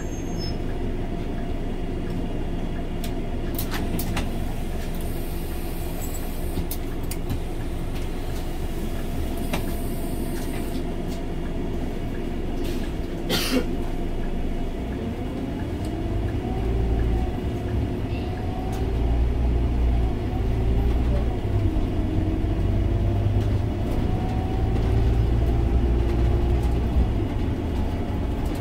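Scania OmniLink three-axle city bus with a biodiesel engine, heard from inside the cabin, pulling away and gathering speed. The deep engine rumble grows louder from about halfway through, with whines that rise as the bus speeds up. There is one sharp click a little before halfway.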